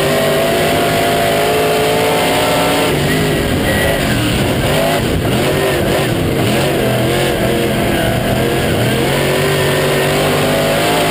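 Late model stock car's V8 engine heard from inside the cockpit, running hard at a steady pitch. About three seconds in, the pitch wavers and dips as the car goes through a turn, then climbs back and holds steady again near the end.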